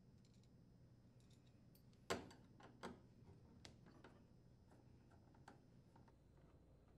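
Faint metallic clicks and taps of a screwdriver and screws being worked out of a washing machine's door hinge, with one sharper click about two seconds in and a lighter one shortly after.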